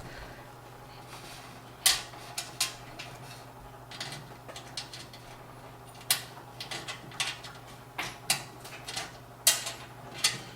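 Small metal motherboard standoffs being handled and fitted into a PC case: irregular sharp metallic clicks and clinks, about a dozen, over a steady low hum.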